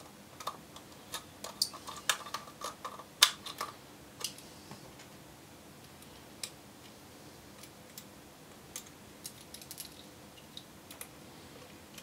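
Small sharp clicks and light metallic taps of a precision screwdriver driving the side mount screws through a metal drive caddy into a 2.5-inch SSD. The clicks are busiest in the first four seconds, then come only now and then.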